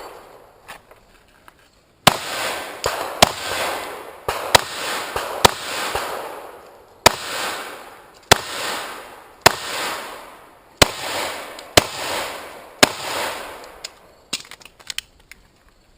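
Pistol shooting a timed practical-shooting stage: a long string of sharp shots, many in quick pairs, each with a short echo, starting about two seconds in and ending near the end with a few fainter pops.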